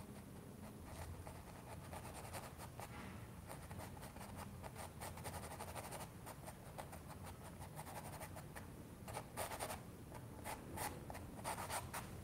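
Small brush stroking and dabbing oil paint onto a stretched canvas: faint, quick scratchy strokes, with a few louder clusters in the last few seconds.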